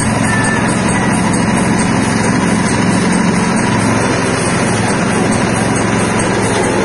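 Stainless-steel soybean cracking and skin-separating machine running steadily, a constant mechanical noise while it splits soybeans and throws out the split beans and skins.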